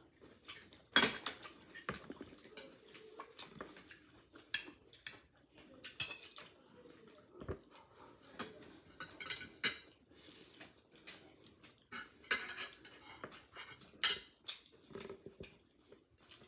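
Steamed clam shells clinking together and a fork tapping and scraping on them while the clams are picked through and eaten: irregular hard clicks and clatters, the sharpest about a second in.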